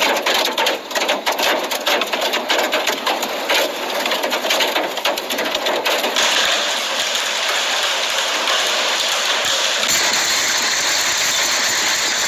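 Large hailstones pelting hard surfaces in a dense, rapid clatter of sharp hits. After about six seconds it turns into a steadier, hissing downpour of hail and heavy rain.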